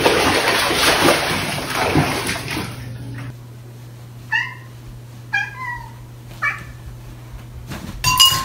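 Water splashing and sloshing as a cat slides into a filled bathtub. Then a cat meows three short times over a steady low hum, and a sudden loud cry comes near the end.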